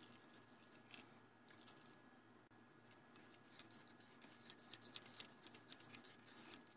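Faint clicks and scrapes of a plastic spoon stirring water into dried chicken bouillon in a bowl, coming more often in the second half.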